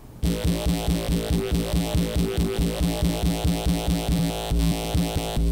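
Serum synth growl bass in FL Studio, pulsing about four times a second, its tone shifting as its warp macro is turned from a MIDI controller knob. Near the end the pulsing gives way to a steadier low note.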